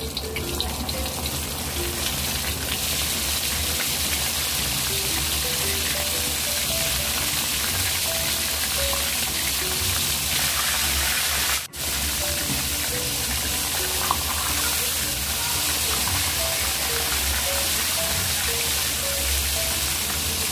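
Pork chops deep-frying in a wok of hot oil: a steady, dense sizzle, breaking off for an instant a little past the middle. Light background music plays under it.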